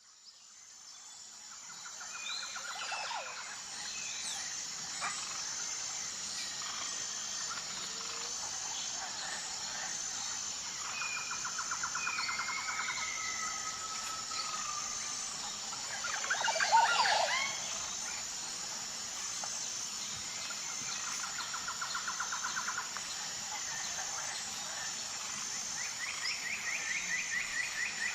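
Outdoor bird chorus fading in over a steady high-pitched insect drone. Several birds sing rapid trills at intervals, and a louder flurry of quick sweeping calls comes about two-thirds of the way through.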